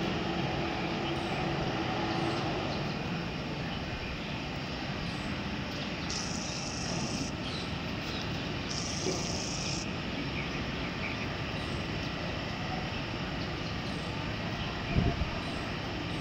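Steady drone of distant engine noise. Two short high hissing buzzes come about six and nine seconds in, and a single low thump comes near the end.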